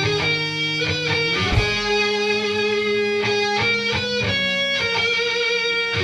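Background music: an instrumental track led by electric guitar.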